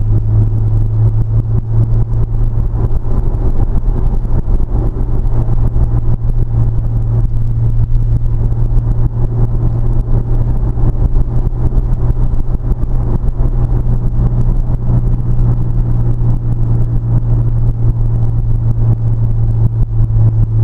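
Car engine and road noise at a steady speed: a constant low drone with a rough, rumbling texture and no revving, picked up by a GoPro microphone.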